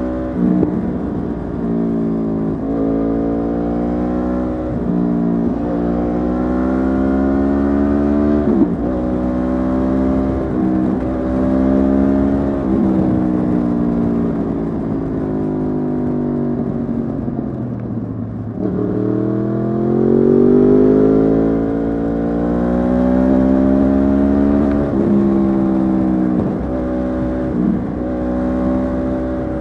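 Yamaha R1's inline-four engine through an Akrapovic exhaust while being ridden: the revs climb and drop back every couple of seconds. About two-thirds of the way through, the revs fall away for a couple of seconds, then climb steadily again.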